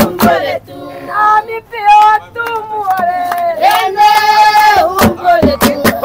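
Oshiwambo traditional dance song: a group of voices singing together in long held notes, with sharp percussive strokes that come in thicker near the end.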